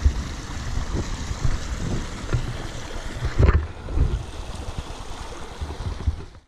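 Rushing of a shallow, silty mountain stream mixed with wind on the microphone, which gives uneven low thumps, the strongest about three and a half seconds in. The sound cuts off suddenly at the end.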